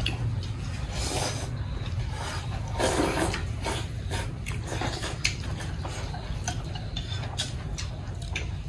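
Eating at a table: spoons and chopsticks scraping and clicking now and then against bowls, over a steady low rumble.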